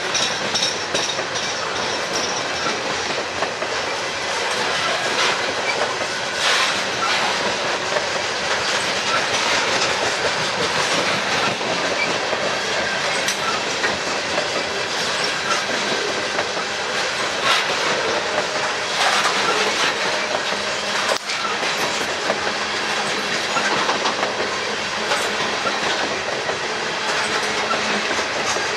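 Norfolk Southern freight train cars rolling past close by: a steady rumble of wheels on rail, with irregular clicks as the wheels cross rail joints.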